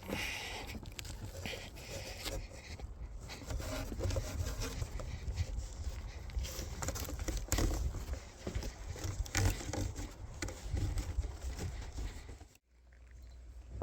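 Irregular rustling, light knocks and scraping over a low rumble, as of objects being handled and moved. Near the end it cuts suddenly to a faint steady hum.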